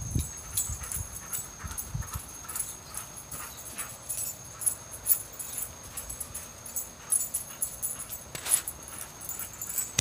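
Dog whimpering in short, scattered sounds.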